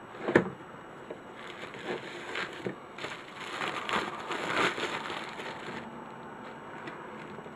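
A single sharp knock about half a second in, then plastic bubble wrap crinkling and rustling for about four seconds as it is pulled off a camera lens.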